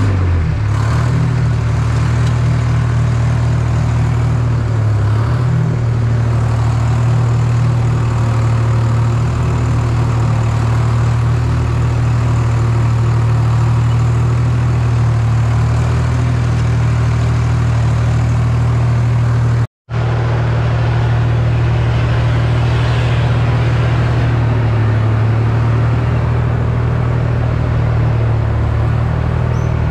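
Tractor engine running steadily with a strong, even low pitch, cutting out for an instant about two-thirds of the way through.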